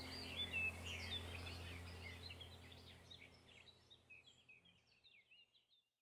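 House sparrows chirping faintly, a quick run of short chirps that fades out near the end, over a low steady hum.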